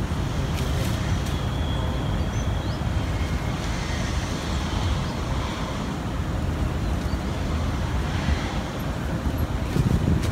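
Wind buffeting the microphone: a steady low rumble with stronger gusts near the end.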